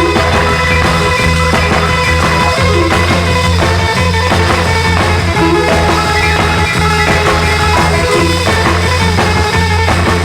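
Rock music with guitar and a steady beat, playing as a backing track.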